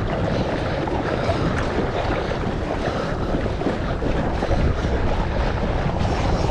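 Steady wind buffeting the microphone over sea water sloshing around a fisherman's inner-tube float.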